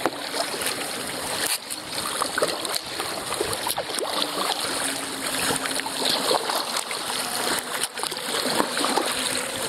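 Water splashing and lapping against the hull of a 1999 Dagger Redline whitewater kayak as it is paddled.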